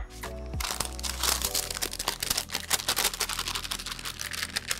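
Parchment paper crinkling and rustling as it is peeled back off soft pie dough in a pie plate, a continuous crackle of many small crinkles.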